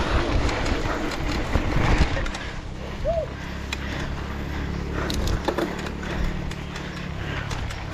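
Enduro dirt bike's engine running at low, steady revs on a rough trail, with knocks and clicks from the bike over the ground. For the first two seconds wind rushes over the microphone. One short squeak about three seconds in.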